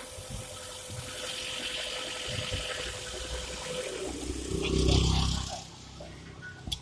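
Fiat Linea T-Jet's engine running on a cold start, with a steady hissing noise and a thin whine from the engine bay: the screeching noise being traced to the right side. About four and a half seconds in, a louder low rumble rises, and then the sound drops away.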